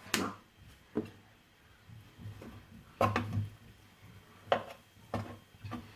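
Cooking utensil knocking and scraping against a pan while stirring fried rice: irregular sharp knocks, about one a second.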